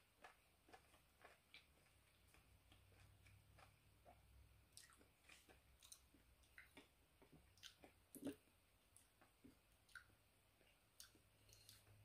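Faint chewing of mango: soft, irregular wet clicks and smacks of the mouth at uneven intervals, one sharper click about two-thirds of the way through.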